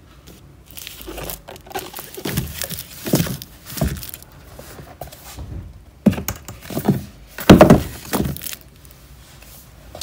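Books being handled and slid into place on a bookshelf: a run of knocks, scrapes and rustles, the loudest knock about seven and a half seconds in.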